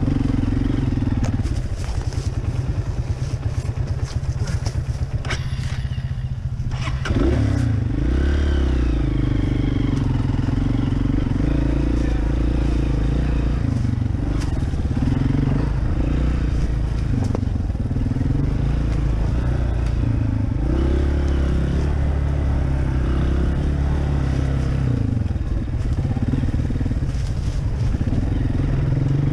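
Honda CRF230F dirt bike's single-cylinder four-stroke engine running as it is ridden over rough trail, its pitch rising and falling with the throttle. It eases off about five seconds in, then picks back up about seven seconds in. Knocks and rattles come from the bike over the bumps.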